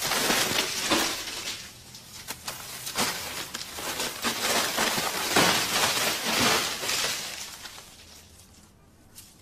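Paper banknotes and the sacks holding them rustling and crinkling as they are rummaged through, in a run of noisy bursts that die away after about seven seconds.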